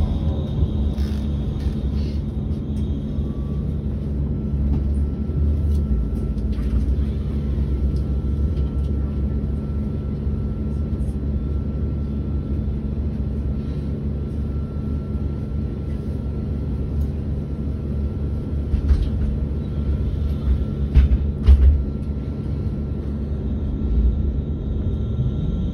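Solaris Urbino 18.75 electric fuel-cell articulated bus standing still, its onboard systems humming with a steady low rumble. A faint high whine sets in about four seconds in, and a few short knocks come late on.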